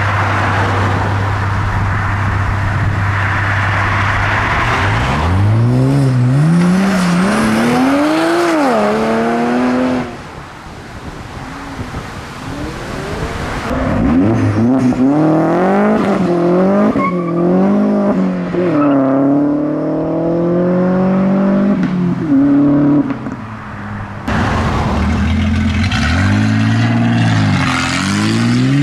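Modified cars accelerating hard away one after another. Each engine's pitch climbs and drops back again and again as it revs up through the gears. The first car holds a steady hum for a few seconds before pulling away, and the sound switches abruptly from one car to the next three times.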